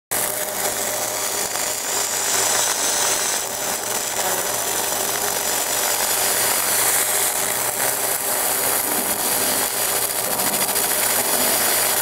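Fiber laser marking machine deep-engraving a metal buckle: a steady crackling hiss as the pulsed beam ablates the metal, with a low hum underneath.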